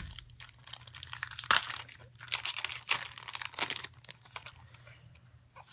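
Pokémon trading card booster pack wrapper crinkling and being torn open, in irregular crackles with a sharp rip about a second and a half in, dying down near the end.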